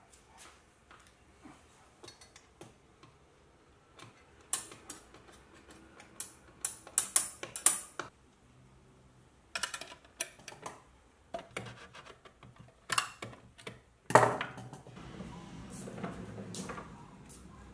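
Stainless steel folding shelf bracket being folded and unfolded by hand, its metal arms clacking and clicking in several bursts. About fourteen seconds in there is a heavier knock, then a low scuffing rumble.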